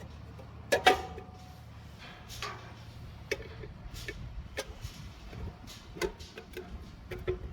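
Scattered knocks and clicks of things being handled, with a loud double knock about a second in, over a low steady hum.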